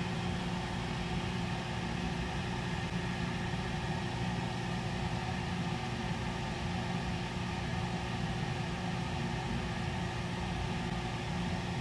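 A steady machine drone with a low hum, unchanging throughout, with no cutting or impacts.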